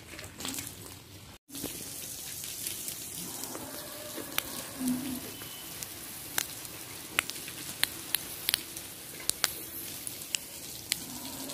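Water splashing onto garden plants as they are watered: a steady hiss with scattered sharp pattering drops, starting after a sudden dropout about a second and a half in.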